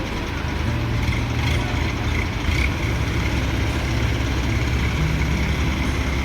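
Diesel engines of several hydra mobile cranes running steadily with a low drone as the cranes build hydraulic pressure for a heavy lift.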